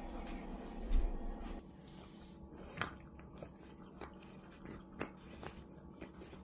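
A soft thump about a second in as food bowls are set down on the floor, then a cat eating wet food from a ceramic dish: quiet, scattered licking and chewing clicks.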